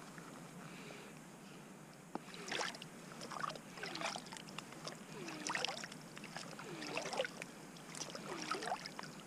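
Soft water-filter flask being dipped and filled in lake water: quiet sloshing and gurgling, with repeated glugs of bubbles starting about two and a half seconds in.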